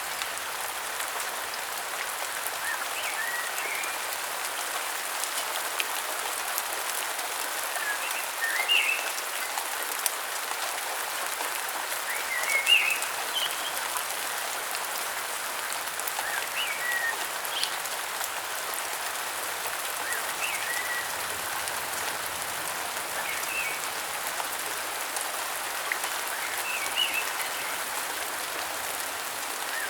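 Steady rain falling, with short high chirps repeating every few seconds through it.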